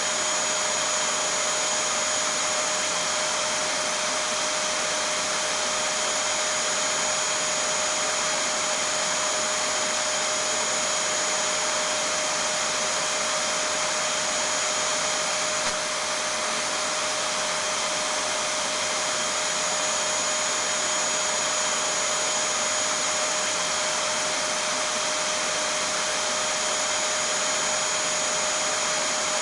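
Vacuum cleaner running steadily: an even rushing hiss of air with a steady high whine over it, holding the same pitch and level.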